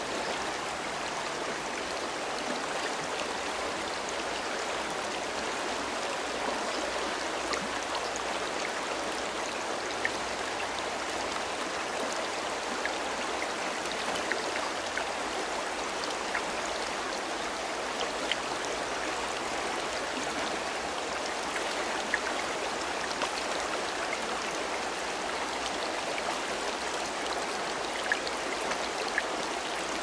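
Shallow mountain river running, a steady rush of current over stones, with a few faint ticks scattered through it.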